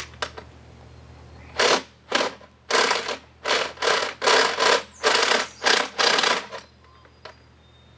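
About a dozen short rasping strokes, roughly two a second, from a tool being worked on an old outboard motor. They start a second and a half in and stop near the end.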